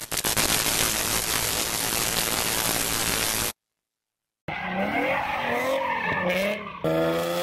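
A loud, even rushing noise cuts off sharply, followed by about a second of silence. Then a Nissan 370Z spinning donuts: its tyres squeal with a pitch that wavers up and down, and near the end its V6 engine is held at steady high revs.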